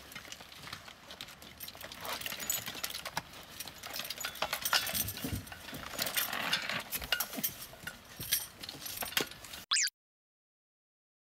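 Scattered clinks, knocks and rattles of scuba gear being handled and assembled on concrete: tanks, regulators, hoses and BCD hardware being set down and fitted. The sound cuts off suddenly near the end.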